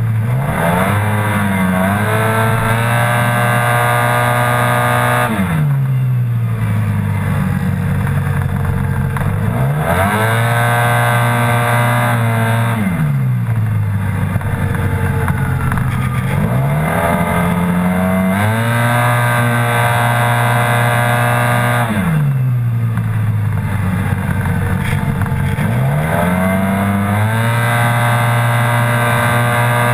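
Yamaha TMAX maxi-scooter's parallel-twin engine at racing pace, heard from on board. The engine note holds level under throttle, as the automatic belt transmission keeps the revs up, and drops sharply then climbs back each time the rider shuts off for a corner, about six times.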